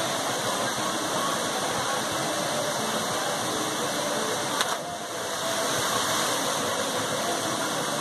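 Steady rush of a waterfall pouring into a rock pool, with one short sharp sound about halfway through.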